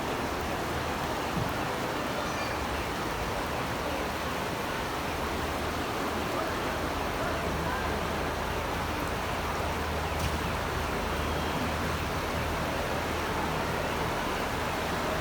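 Steady rush of floodwater from the swollen Malacatos River, an even, unbroken roar of water.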